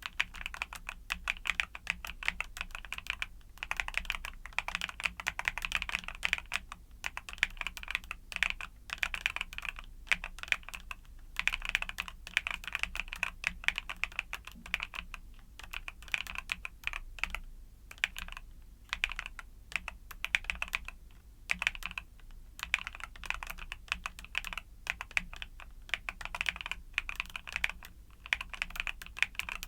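Mechanical keyboard with YUNZII Cocoa Cream switches being typed on in fast runs of keystrokes, with brief pauses every few seconds.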